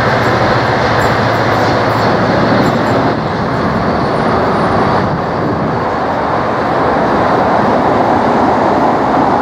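Diesel locomotives running light, drawing away; their low engine drone fades over the first two or three seconds. A loud, steady rushing noise stays throughout.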